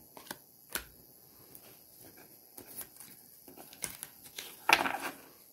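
Tarot cards being shuffled and handled: faint scattered clicks and flicks of card stock, with a louder, brief rustle near the end.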